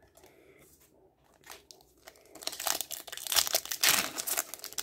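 Foil Yu-Gi-Oh booster pack crinkling and tearing as it is pulled open by hand, starting about two seconds in after a quiet stretch with faint rustles.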